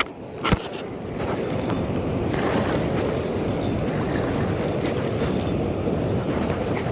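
Steady rush of water from the dam, mixed with wind noise on the microphone. There is a single sharp click about half a second in, just after a brief dip in level.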